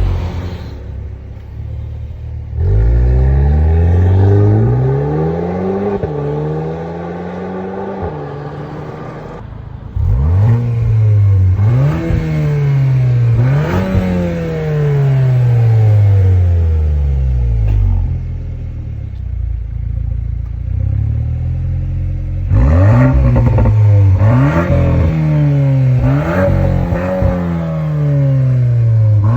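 2022 VW Golf R Mk8's turbocharged 2.0-litre four-cylinder engine through a Milltek non-resonated valved exhaust, revved again and again: the pitch climbs and falls back each time. There are quieter lower stretches between the revs and a run of quick blips near the end.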